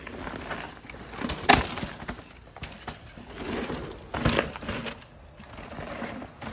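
Mountain bikes riding a dirt trail: tyres rolling and scrabbling over dirt and loose stones, with two sharp knocks from the bikes, one about a second and a half in and another just past four seconds.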